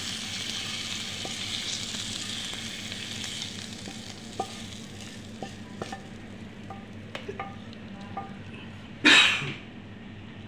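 Chicken sizzling in a nonstick frying pan, the hiss fading over the first few seconds, with light clinks of a utensil against the pan and a ceramic plate as the pieces are served. A short, loud noise about nine seconds in.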